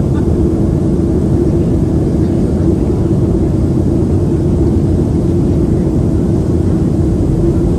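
Cabin noise inside a Boeing 737-700 on the ground after landing: the CFM56-7B engines and airframe give a steady rumble with a constant low hum.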